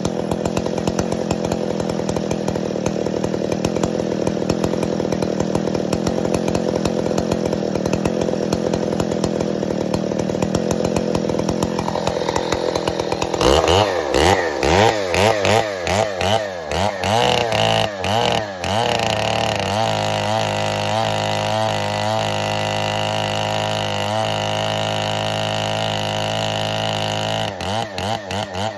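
Restored 1969 Stihl 090 two-stroke chainsaw on its original cylinder: it idles steadily, then from about 13 seconds in it is revved up and down several times. From about 19 seconds it runs at a steady high speed, with the revs swinging up and down again near the end.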